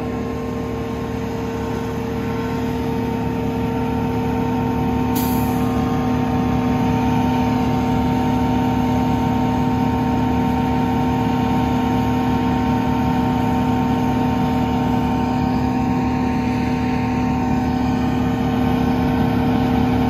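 Forage chopper running steadily while chopping oats: a continuous machine drone with a held hum that grows a little louder over the first few seconds, then stays even.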